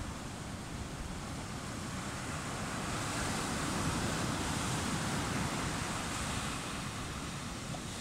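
Sea waves breaking and washing up a sandy beach as a steady hiss of surf, one wash swelling about three seconds in and easing off after about six.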